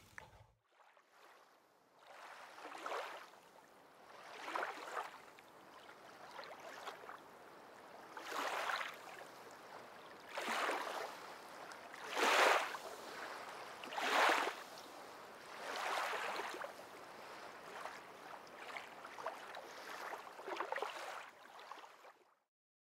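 Soft rushing noise that swells and fades evenly about every two seconds, about a dozen times over, then stops.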